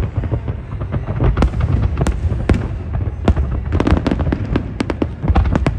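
Large fireworks display: rapid, overlapping bangs and crackling pops over a continuous low rumble.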